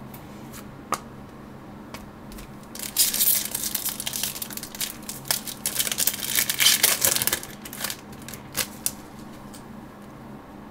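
Crinkling and rustling of card packaging as trading cards are handled, for about four and a half seconds starting some three seconds in, with scattered small clicks before and after.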